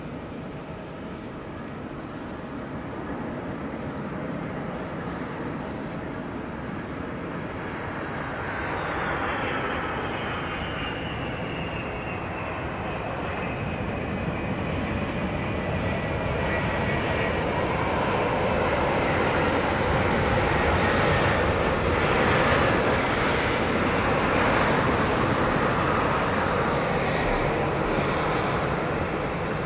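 Boeing 747-400 Dreamlifter's four turbofan engines on landing, a jet drone growing steadily louder as the aircraft nears, with a high whine that slides down in pitch.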